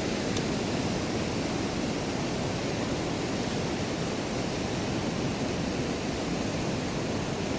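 Fast, high river water in flood, rushing steadily.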